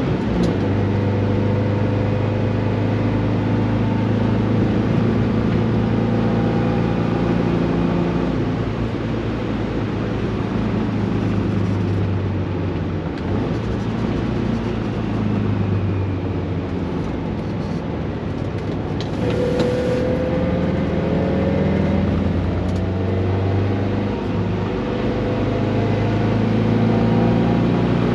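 Air-cooled flat-four engine of a standard 1600cc VW Beetle running hard at track speed, holding a steady pitch for long stretches. The engine note dips briefly twice, around the middle and again near the end, and a rising tone comes in about two-thirds of the way through.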